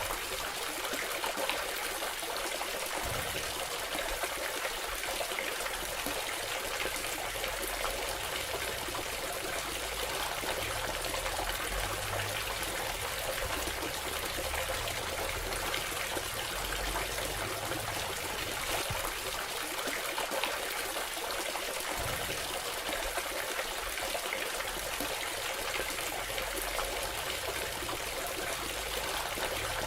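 Water trickling steadily down a small cement tabletop waterfall fountain.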